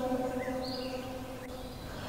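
A woman's Qur'an recitation falls silent between phrases, and its echoing tail fades out slowly.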